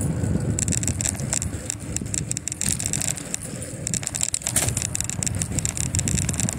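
A bicycle being ridden along a city street: wind on the microphone and road rumble from the tyres, with frequent sharp rattling clicks throughout.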